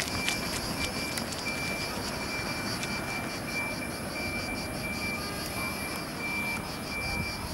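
Outdoor background noise: a steady hiss with a high, rapidly pulsing buzz over it and a faint high tone repeating about twice a second.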